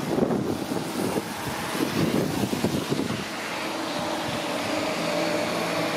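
Liebherr material handler at work, its engine and hydraulics running as it swings its grab over a lorry. An uneven rumble fills the first three seconds, then it settles into a steady hum with a few held tones.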